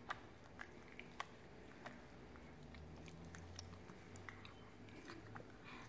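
Near silence: a faint low hum with a few scattered soft clicks at irregular intervals.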